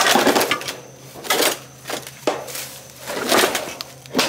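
Irregular clattering and scraping as the sheet-metal cabinet of an outdoor AC condenser unit is gripped and shifted, in several short bursts.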